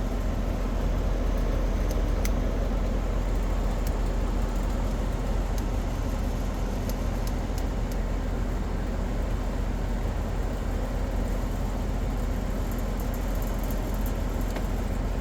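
Steady mechanical running noise with a constant low hum and a few faint clicks.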